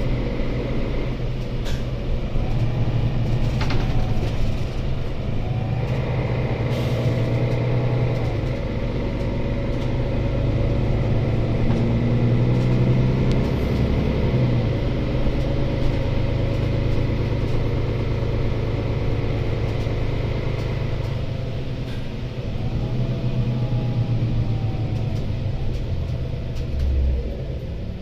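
Interior sound of a Mercedes-Benz O530 Citaro C2 city bus under way: a steady low diesel drone with road rumble. A whine rises and falls in pitch several times as the bus changes speed, and there is a low thump near the end.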